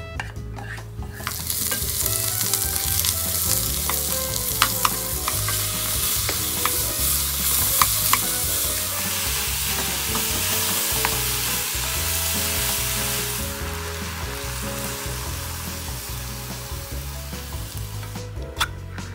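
Beef tendon, onion and carrot sizzling as they are stir-fried in oil in a nonstick pot, a wooden spatula clicking now and then against the pan. The sizzle starts about a second in, eases off in the second half and stops near the end.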